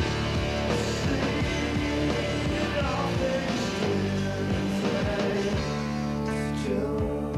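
Grunge rock band recording: electric guitars, bass and drums with a singer's voice, at a steady drum beat.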